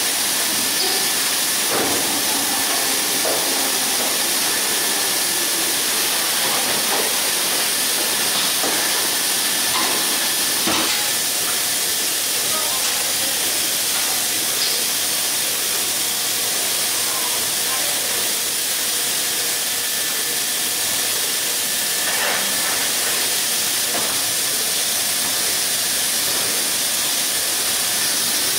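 Steady loud hiss of factory processing equipment, with faint steady machine tones and an occasional clank.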